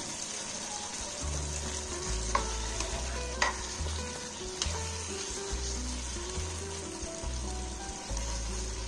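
Chicken roast gravy sizzling in a frying pan while a steel spoon stirs it, clicking sharply against the pan a few times in the middle. A tune plays underneath.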